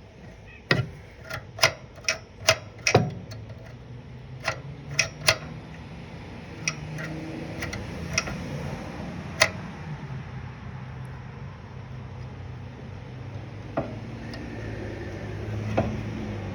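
Sharp metallic clicks and taps from hand work on a lawn tractor's engine as the carburetor linkage rods are fitted. A quick run of loud clicks comes in the first few seconds, with scattered ones after. A low steady rumble builds through the second half.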